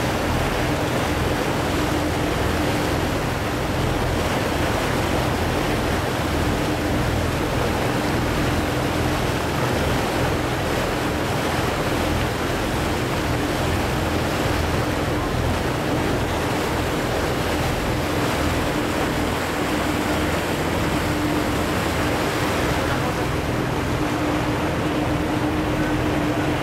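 Motorboat under way: a steady engine drone with one constant low tone, under the rush of water along the hull and wind on the microphone.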